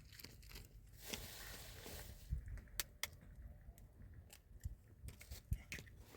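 Scattered small clicks and knocks, with a short rustle about a second in: the sound of something being handled.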